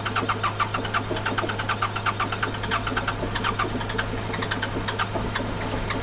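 Caterpillar 420F backhoe's diesel engine running just after a cold start, with a fast, even clatter over a steady hum: the cold diesel's rough idle, which the operator calls a cold start.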